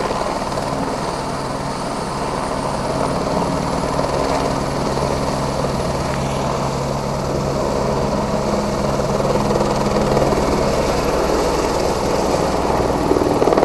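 Eurocopter AS350 B3 Ecureuil helicopter hovering low while it fills its firefighting water bucket. It makes a steady, loud rotor beat and turbine sound that grows a little louder near the end.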